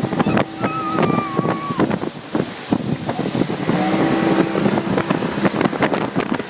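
Ski boat engine running at speed, with wind buffeting the microphone.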